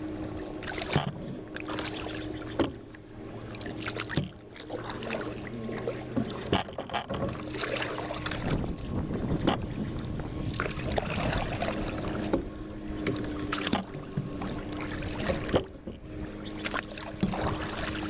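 Small paddle craft on the water: irregular knocks and splashes of gear and water against the kayak, with a faint hum that comes and goes.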